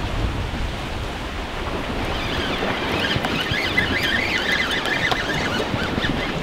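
Wind buffeting the microphone over small waves washing against shoreline rocks. A faint, high, wavering squeak comes in a couple of seconds in and fades near the end.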